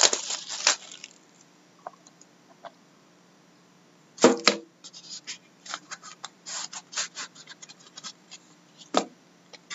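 A lidded cardboard trading-card box being unwrapped and opened by hand: crinkling and scratching of torn wrapping in the first second, a loud double knock about four seconds in as the lid is pulled off and put down on the wooden desk, then scattered light scratches and rustles as the box and inner cover are handled, and another knock near the end.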